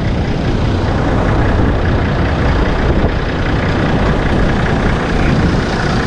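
A 4x4 vehicle running steadily, heard as a constant low noise that holds even throughout.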